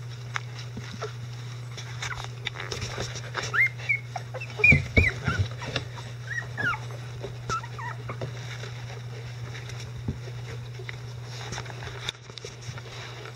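Eleven-day-old Icelandic Sheepdog puppies squeaking and whimpering in short, high, bending cries, bunched over a few seconds starting a few seconds in. Soft clicks and bumps come from the bedding and dogs, over a steady low hum.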